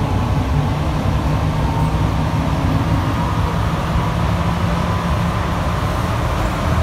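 Cabin noise inside an Alstom NS-93 rubber-tyred metro train running at speed: a steady low rumble from the tyres and running gear, with a faint whine that rises slightly in pitch.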